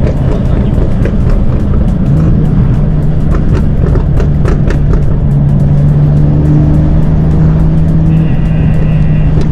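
Background music over a BMW M2 (F87) running on the road, its N55 turbocharged straight-six heard through an aftermarket exhaust.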